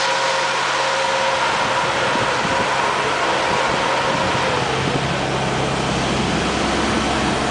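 Armored military truck's diesel engine idling, with a steady whine over a low rumble. About four and a half seconds in, the whine falls in pitch and the low rumble grows stronger.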